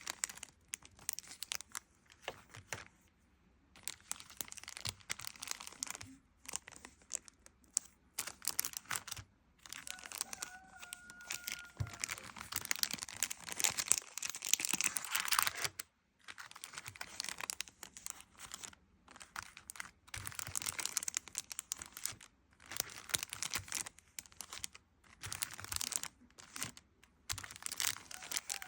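Paper being crinkled, crumpled and torn close up, in bursts of dense crackling with short pauses between them.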